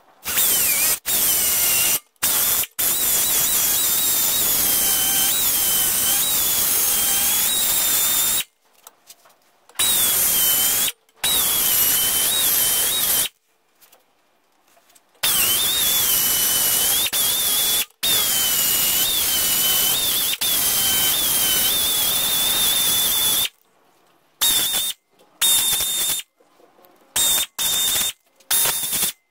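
Air-powered die grinder running in several long runs, its high whine dipping in pitch and recovering as the bit bites into a sheet-metal plate, grinding out the rest of an outlet cut-out. It ends in short on-off blips near the end.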